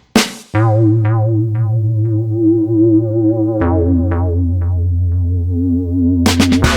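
Background electronic music: a synthesizer melody with wavering held notes over a steady bass line that steps down to a lower note partway through, with drum hits coming back in near the end.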